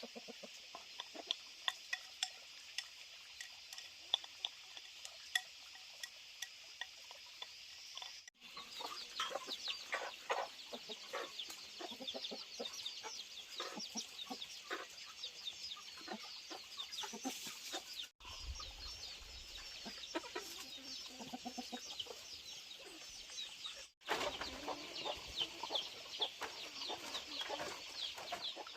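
Chickens clucking, with many short high calls over a steady high-pitched hiss. The sound drops out abruptly three times.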